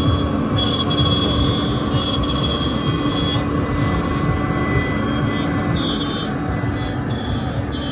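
CNC wood router carving a wooden relief panel: the spindle runs steadily over a constant mechanical hum, with a high tone that comes and goes several times as it cuts.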